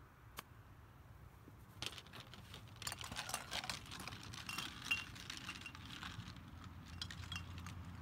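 A golf iron strikes the ball once in a short chip, a single sharp click. From about two seconds in, the golf clubs clink and rattle against each other in a stand bag being carried at a run, in quick irregular metallic jangles.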